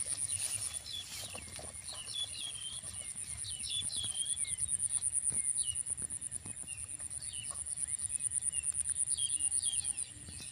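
Insects calling in a steady, high, rapidly pulsing drone, with birds giving many short chirps over it.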